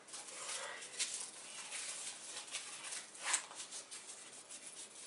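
Rustling and crinkling of a Timberland waterproof jacket's shell fabric as hands handle and shift it, with one sharper crackle a little past halfway.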